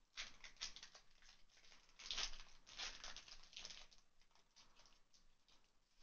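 Foil wrapper of a Pokémon card booster pack crinkling and tearing as it is opened by hand, faint and irregular, loudest about two seconds in and dying away after about four seconds.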